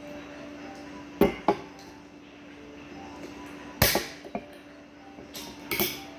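Aluminium can of carbonated orange soda being opened by its pull tab: a couple of sharp clicks about a second in, then a short loud hiss of escaping gas just before four seconds, with more brief hissing and handling knocks near the end. A faint steady hum runs underneath.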